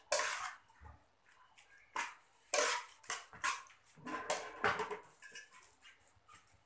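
Metal spoon scraping and knocking against an aluminium pot as minced pork is stirred and mixed, in a string of short irregular strokes.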